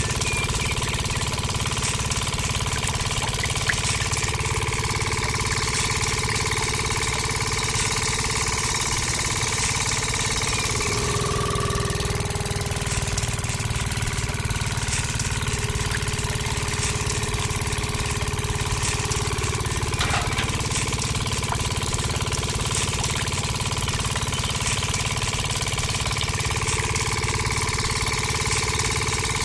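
Small engine-style motor of a miniature belt-driven sugarcane juicer running steadily as cane is fed through the rollers. Its pitch dips briefly about eleven seconds in.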